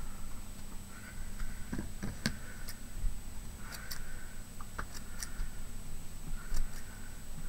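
Scissors snipping through craft material: a string of light clicks and short snips, roughly one a second.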